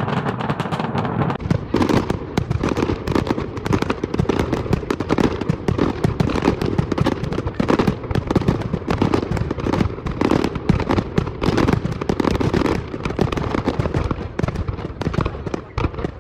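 Fireworks display: aerial shells bursting in quick succession, a dense, unbroken run of bangs and crackling.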